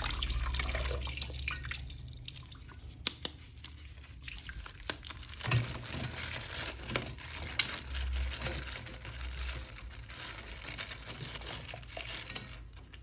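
Water running and dripping as a plastic toy figure is washed by hand, with scattered light clicks of the figure being handled.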